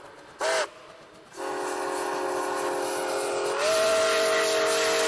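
Steam locomotive's chime whistle: a short toot, then a long blast sounding several tones together, which steps slightly higher in pitch partway through.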